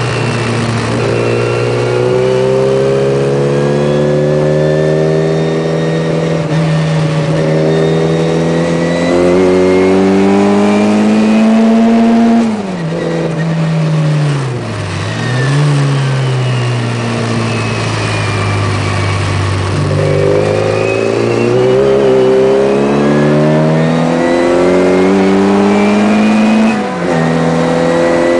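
Tuned classic Mini's A-series four-cylinder engine under hard acceleration, heard from inside the car: the revs climb steadily for about twelve seconds, fall sharply and dip, then pick up and climb again for a long run, with a quick drop to lower revs near the end as it changes up a gear.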